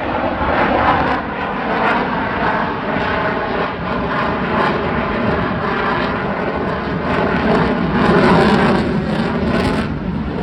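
Military aircraft engine noise, loud and steady, swelling slightly about a second in and again near the end.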